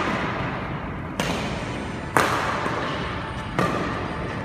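Badminton rackets striking a shuttlecock in a rally: three sharp hits about a second apart, each ringing out in the echo of a large hall.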